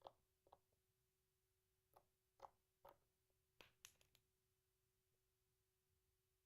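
Homemade glue slime being squeezed and poked, giving faint sharp clicks and pops, about ten in the first four seconds.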